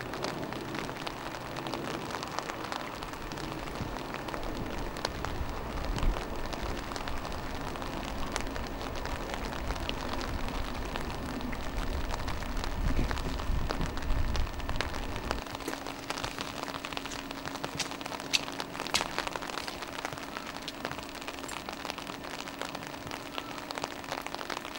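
Rain falling on stone and ground: a steady hiss of rain with many small drops and drips ticking through it. A low rumble underlies it and stops about halfway through.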